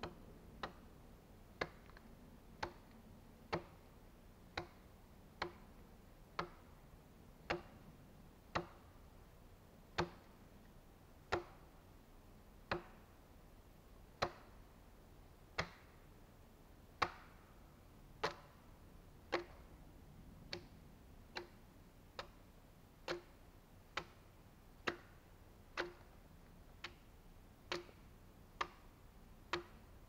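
Axe blade chopping into the side of a log in steady single strokes, about one a second and a little quicker in the second half, hewing it into a beam.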